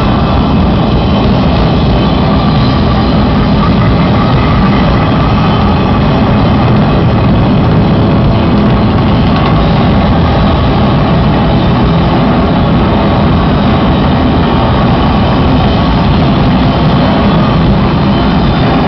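Live, heavily distorted electric guitar noise and feedback played loud through a concert PA: a dense, unbroken wash of noise with faint held feedback tones, as heard from the audience.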